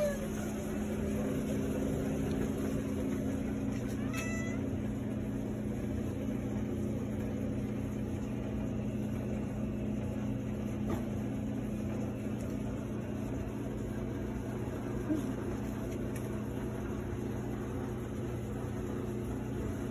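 A dilute calico cat gives a short meow about four seconds in, over a steady low hum.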